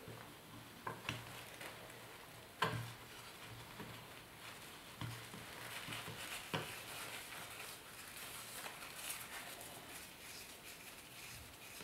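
Filter paper rustling and crinkling as it is folded over a blob of urushi lacquer, rolled up and twisted to squeeze the lacquer through. A few soft knocks stand out, the sharpest about two and a half seconds in.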